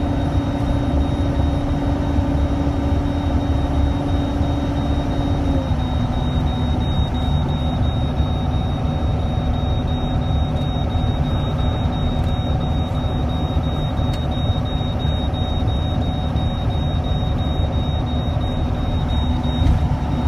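Engine and road drone inside a moving truck's cab, a steady low rumble with a humming engine note that drops slightly in pitch about six seconds in. A thin high-pitched whine sits over it.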